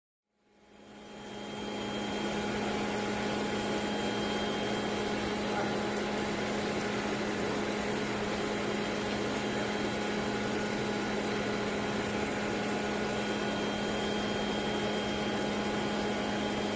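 Steady machine hum with an even hiss from the shrimp farm's aeration equipment, the air supply driving the microbubble diffusers, fading in over the first two seconds and then running unchanged.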